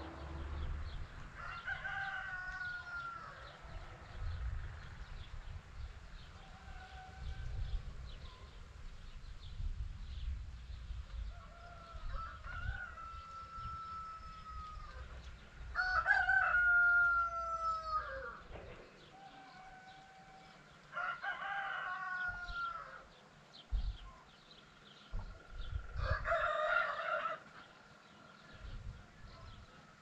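Roosters crowing repeatedly, about five long crows with fainter ones between, the loudest about halfway through.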